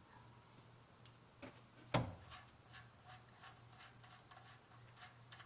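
Faint metallic clicks and taps as the oil pan drain bolt of a 1990 Mazda B2200 is worked loose after its seal has been broken, with one sharper click about two seconds in.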